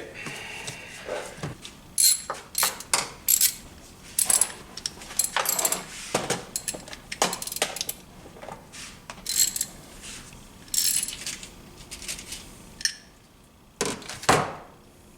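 Hand tools and small metal parts being handled at a workbench: irregular clicks, taps, clinks and short scrapes, with two louder knocks near the end.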